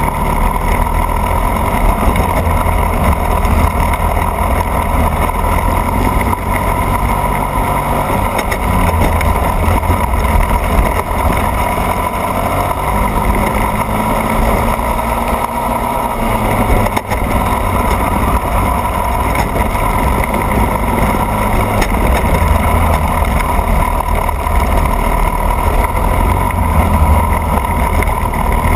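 A racing kart's engine running continuously at race speed, loud and close, heard from a camera mounted on the kart itself.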